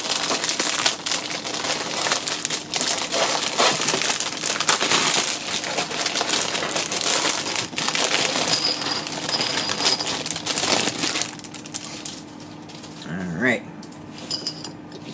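Clear plastic polybag crinkling loudly as it is torn open and the magazine and plastic miniature sprue are slid out. About eleven seconds in the crinkling stops, leaving quieter handling of the sprue and magazine.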